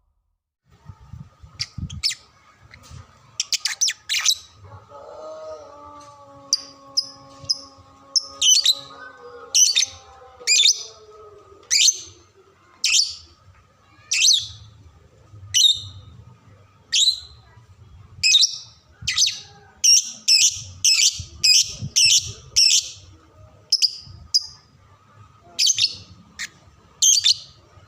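Female lovebird calling in short, sharp, high chirps about once a second, coming in a faster run about two-thirds of the way through. Its tutor song is the master call for young lovebirds to learn. About five seconds in, a lower held tone sounds beneath for about five seconds.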